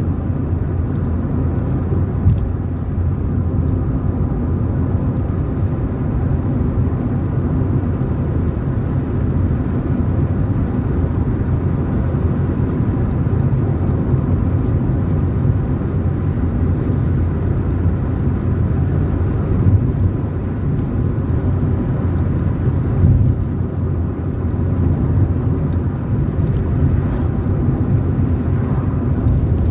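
A car driving along a road: a steady low engine and road rumble with no sudden events.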